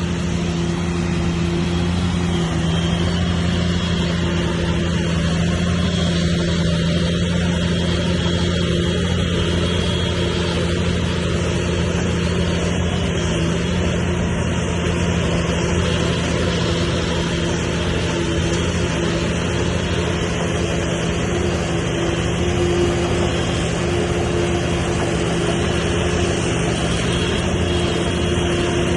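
Heavy earthmoving machinery's diesel engine running steadily at a constant pitch.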